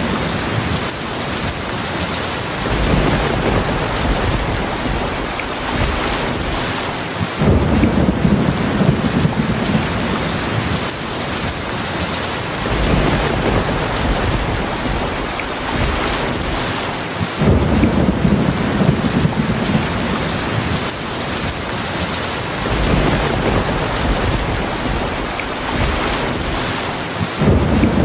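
Heavy rainstorm: steady, dense rain hiss with low rolling thunder. The thunder rumbles up suddenly four times, roughly every ten seconds, and fades back between.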